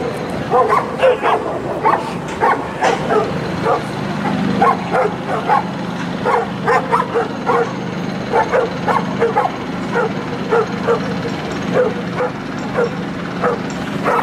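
A pack of dogs barking: short barks come again and again, about two a second, over a steady low hum.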